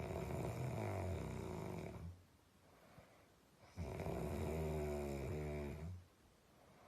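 A man snoring in his sleep: two long snores, each about two seconds, with a quiet breath-length pause between them.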